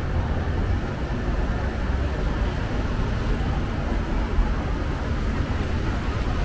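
Steady urban background noise: a constant deep rumble under an even hiss, with no single sound standing out.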